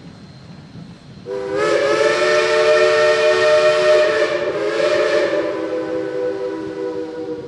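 Steam locomotive's chime whistle blowing one long blast, several notes sounding together as a chord over a rush of steam hiss. It starts about a second in, and the hiss drops away before the notes fade near the end.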